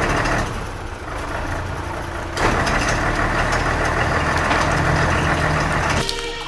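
A steady engine-like rumble with a rushing noise that grows louder about two and a half seconds in and cuts off shortly before the end.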